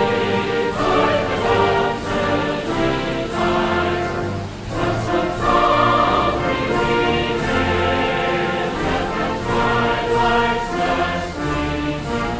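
Background music: an orchestra with a choir singing long held notes.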